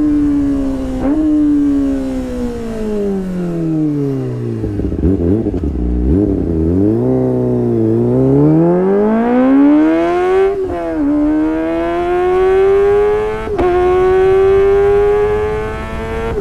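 2020 Kawasaki ZX-25R inline-four with a Sportisi Motorsport SRX aftermarket exhaust, running high-pitched at high revs. The revs fall steadily to a low point about halfway through, then climb again, with the pitch dropping sharply twice near the end as the engine shifts up a gear.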